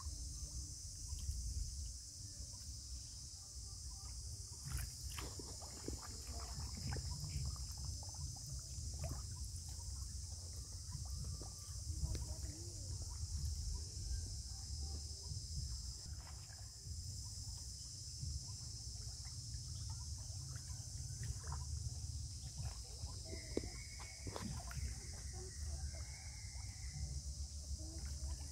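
Steady high-pitched chorus of insects throughout, over a low rumble, with scattered small splashes and knocks from a monkey swimming through floating water plants.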